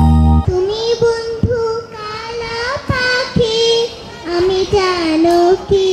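A young girl singing into a microphone without accompaniment, holding long notes. Recorded dance music cuts off abruptly in the first half second.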